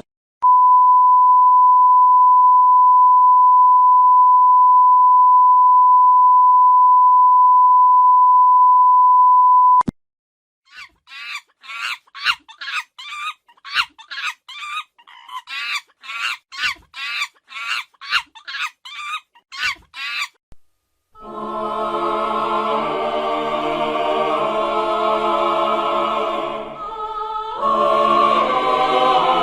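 A run of sound effects. First a steady 1 kHz censor beep held for about nine seconds. Then about ten seconds of short, repeated high calls, roughly two a second. Then sustained choral music.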